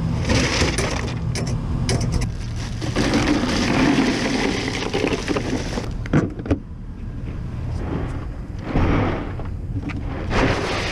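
Ice and a hard plastic cooler being handled, with rattling and rustling throughout and a couple of sharp knocks a little after six seconds in.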